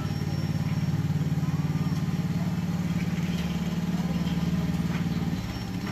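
Small engine of a riding lawnmower running steadily with a fast, even pulse, towing a train of kids' carts. The engine sound drops away sharply near the end.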